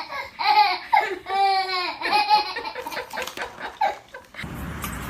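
A baby laughing in bursts of high-pitched giggles and squeals. Near the end it cuts off suddenly and gives way to a steady hiss.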